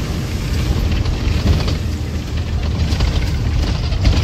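Bus running on a rough mountain road, heard from inside the cabin: a steady low engine and road rumble with frequent rattles and knocks from the body as it jolts.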